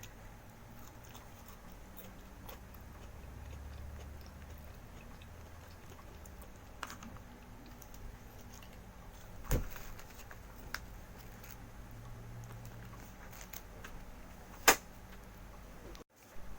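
A person chewing and eating homemade pizza close to the microphone, with soft mouth and handling noises and a few sharp clicks, the loudest near the end.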